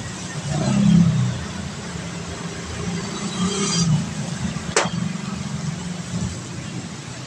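Road traffic: passing vehicles make a steady low rumble that swells about a second in. A single sharp click comes just before five seconds.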